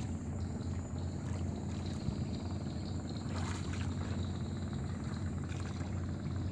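Steady low drone of a boat engine, running evenly without a break.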